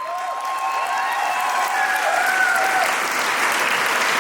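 Audience applauding and cheering, with high voices whooping and calling out over the clapping.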